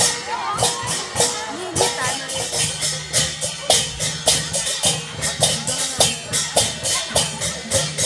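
Festival folk music driven by shaken percussion beating a steady rhythm, a little under two strokes a second, with voices and crowd chatter mixed in.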